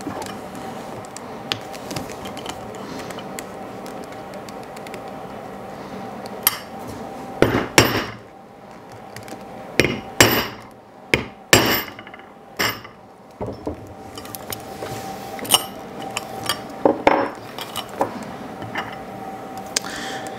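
A hammer striking a metal rivet setter, peening a copper rivet and washer through leather on a steel block. About ten sharp, irregular blows, most of them bunched in the middle, flattening the rivet's cut end where sharp edges are slow to smooth out.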